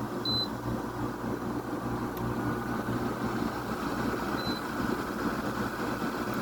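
Air conditioners' indoor units running: a steady fan rush with a low hum. Two short high beeps sound, about four seconds apart.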